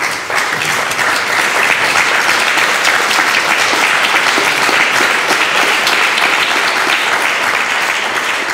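Audience applauding: many people clapping steadily, tailing off slightly near the end.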